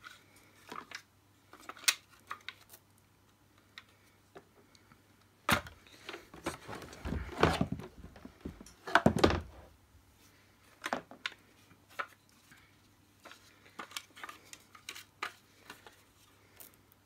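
Hard plastic parts of an Electrolux 502 upright vacuum cleaner being handled and fitted together: scattered clicks and knocks, with a longer spell of rubbing and dull knocks in the middle.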